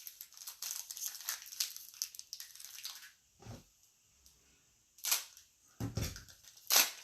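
Foil basketball card pack wrapper crinkling and being torn open, dense crackling for about three seconds. A few louder rustles and thumps of handling follow near the end.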